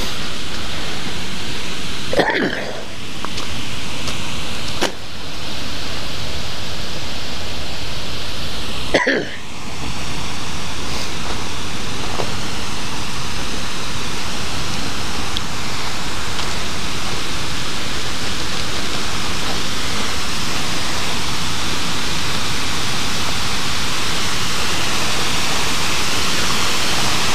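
Steady rush of river water pouring over a stone weir, a loud even roar-like noise with no pitch. It dips briefly a few times in the first ten seconds.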